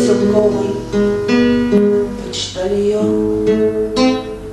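Acoustic guitar playing an instrumental passage of plucked and strummed chords, each note ringing on until the next.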